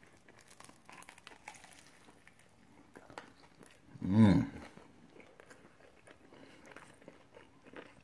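A man bites into and chews a toasted bagel sandwich filled with bacon, egg, cheese and bologna, with faint crunching and chewing. About four seconds in comes a short, louder hum of the voice.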